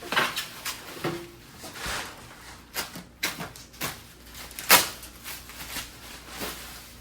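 Packing material being pulled away from a boxed oscilloscope: irregular crinkling and rustling with sharp clicks and knocks, the loudest about five seconds in.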